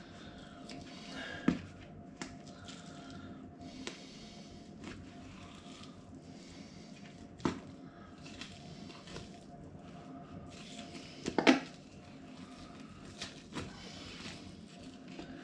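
Knife cutting and scraping along a goose's breastbone as the breast meat is worked off the carcass: quiet scraping with scattered small clicks, and a sharper pair of knocks about three quarters of the way through, over a faint steady hum.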